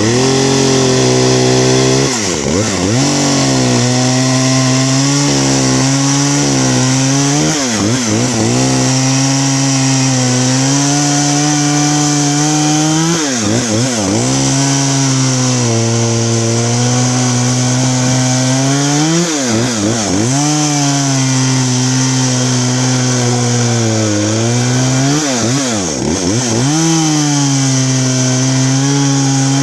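Poulan two-stroke chainsaw running at high revs, cutting through wood while blocking firewood. The engine speed dips sharply and picks up again about every five or six seconds.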